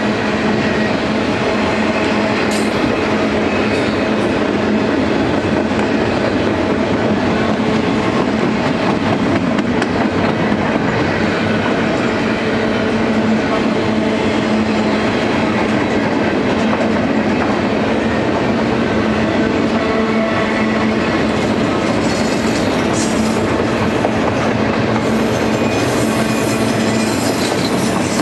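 Double-stack intermodal well cars of a freight train rolling past, a steady, unbroken rumble of steel wheels on the rails.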